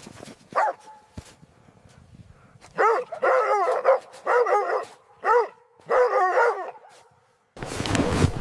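A dog barking in short pitched bursts, several barks in a row in the middle, then a loud rushing noise cuts in near the end.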